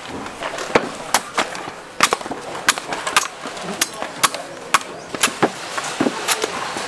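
A blade hacking at coconuts: a run of sharp strikes, about two a second, unevenly spaced.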